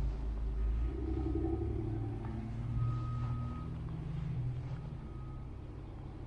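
Low, steady rumble of a motor vehicle engine running.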